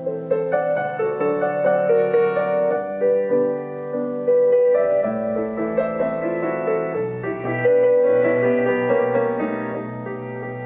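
Background music played on piano: a steady run of melodic notes with chords underneath.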